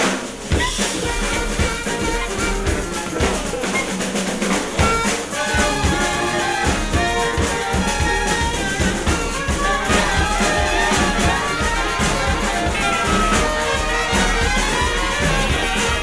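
Live brass band music: trumpets and other horns playing a tune over busy drumming with snare and bass drum.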